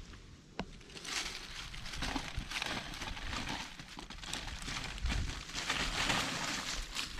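Dry fallen leaves and twigs rustling and crackling as a hand pushes into the leaf litter, with dull knocks of handling underneath; it starts about a second in and goes on unevenly.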